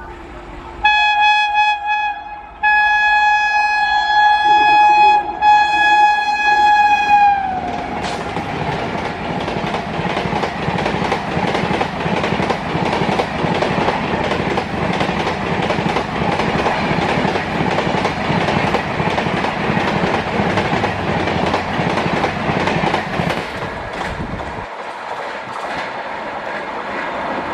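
Indian Railways electric locomotive horn sounding a short blast and then a long one, the pitch dropping at the end as the locomotive passes. Then the train's coaches rush past at speed, a steady rumble with a rapid clatter of wheels over the rail joints.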